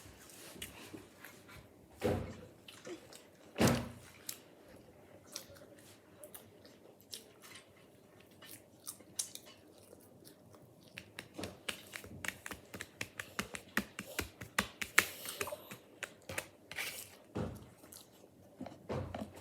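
Crisps being bitten and chewed close to the microphone: a string of short crackly crunches, with two louder bites about two and four seconds in and quicker, denser crunching in the second half.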